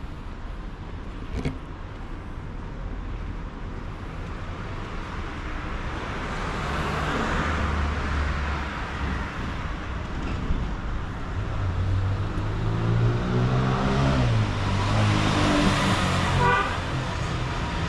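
Street traffic: cars passing, growing louder about six seconds in. Around twelve seconds one vehicle's engine passes close, its pitch rising and then falling.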